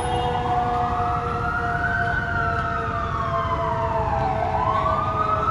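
FDNY fire engine's siren wailing, one slow rise and fall that starts to rise again near the end, over a second, steadier tone that drifts slowly down, with the Rumbler low-frequency siren sounding along with it.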